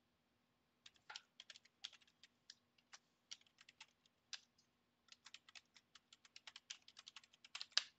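Computer keyboard typing: irregular quick keystrokes, a short pause about four and a half seconds in, then a faster, denser run of keystrokes.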